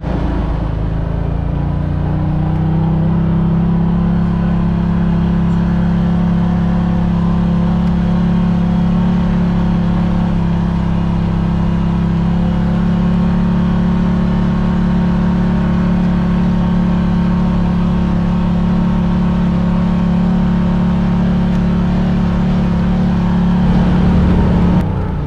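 Side-by-side UTV engine heard from inside the cab, a steady drone that rises in pitch over the first couple of seconds and then holds at an even speed. The sound changes abruptly shortly before the end.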